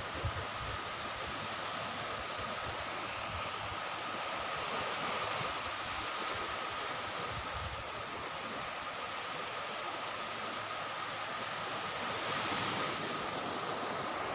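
Small waves washing onto a sandy beach as a steady surf hiss, swelling louder near the end, with wind buffeting the microphone.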